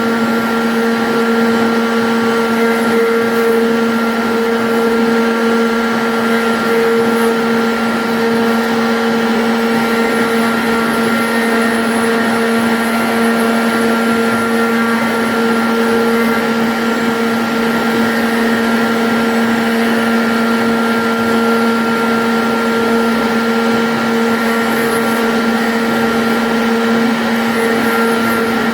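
CNC router spindle running steadily while cutting a 2D jali pattern in MDF: a constant whine over an even hiss.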